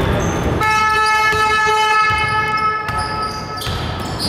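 Basketball arena buzzer sounding once, a steady horn tone lasting a little over two seconds.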